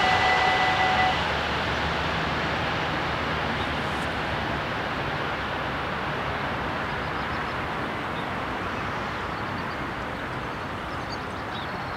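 Level crossing bells ringing, stopping about a second in. After that the broad rumble of the passed train fades slowly, with faint high chirps near the end.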